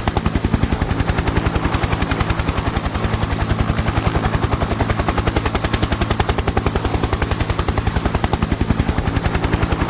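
Helicopter rotor beating in a rapid, even rhythm over a steady low engine hum, holding a constant level.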